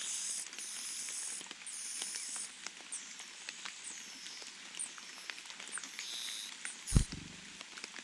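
High, thin calls from Sumatran niltava nestlings begging at the nest while the male feeds them: buzzy runs in the first couple of seconds, then short falling squeaks every half second or so, over faint clicking. A dull thump about seven seconds in is the loudest sound.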